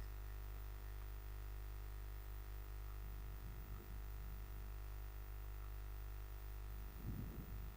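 Faint steady electrical hum and hiss of the recording setup: room tone with no speech.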